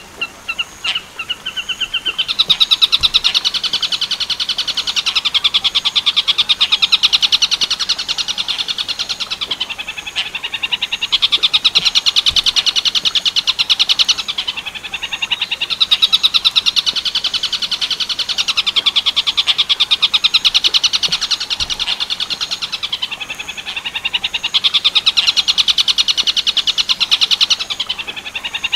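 Tengkek buto 'werkudoro' bird call: a fast, rattling chatter in long runs of several seconds with brief breaks between them, starting about two seconds in.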